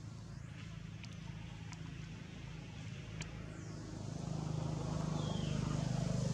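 Steady low engine hum of a motor vehicle, growing louder about two-thirds of the way in as it comes closer, with a few faint ticks.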